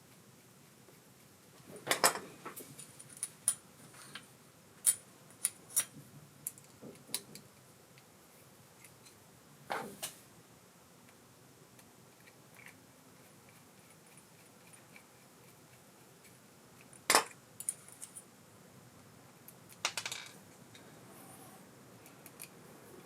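Small metal parts and tools clicking and clinking as an ABU Ambassadeur 5500C baitcasting reel is worked on by hand: a run of sharp clicks about two seconds in, and single clinks later on, around ten, seventeen and twenty seconds.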